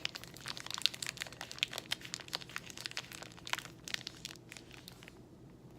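Granola bar wrapper crinkling as it is handled, a dense run of crackles that thins out about five seconds in.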